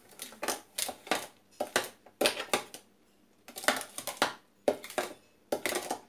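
A spoon scraping and knocking against the side of a clear food-processor bowl in irregular strokes as whipped cream is stirred into crushed frozen strawberries, with a brief pause about three seconds in.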